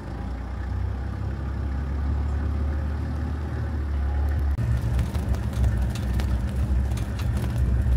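Engine of an open safari game-drive vehicle running steadily as it drives slowly along a bush track. About halfway through the engine gets louder and the vehicle body starts to rattle and knock over the rough ground.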